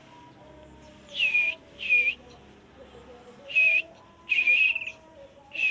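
A yellow-vented bulbul (trucuk) calling: five short, bright whistled notes, each dipping slightly in pitch, the first two close together and the fourth longer and warbling.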